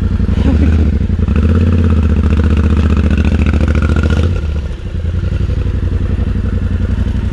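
Enduro motorcycle engine pulling under load up a steep slope, revving harder for a few seconds, easing off sharply about four and a half seconds in, then picking up again.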